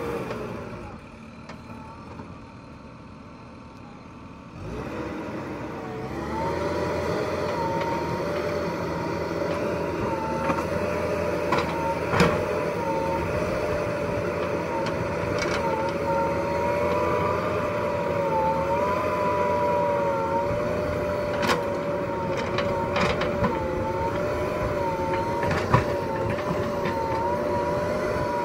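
JCB 3DX Super backhoe loader at work: fainter at first, then about five seconds in its diesel engine revs up and runs steadily under load with a wavering whine as the backhoe arm is worked. A few sharp knocks come through now and then.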